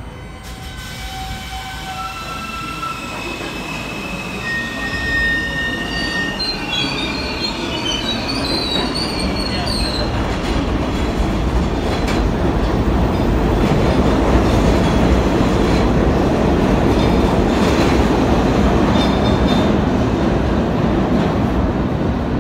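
Kawasaki R68A subway train pulling out of the station. High-pitched tones step upward in pitch over the first ten seconds as it accelerates. A heavy rumble of the cars rolling past then builds and stays loud as the train leaves.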